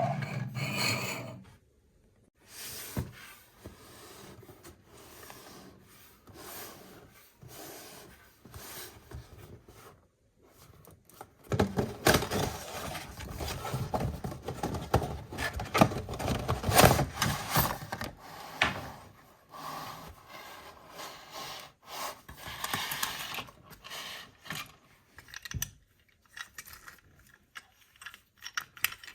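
Hands handling toys and packaging, with rubbing, scraping and irregular light clicks that are busiest in the middle.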